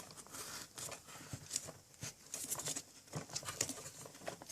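Faint, scattered light clicks and rustles of hands handling a small RC car, just fitted with cardboard Pringles-tube sleeves over its rear tyres.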